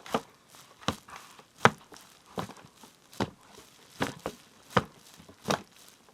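Footsteps at an even walking pace, about eight steps, one roughly every three-quarters of a second.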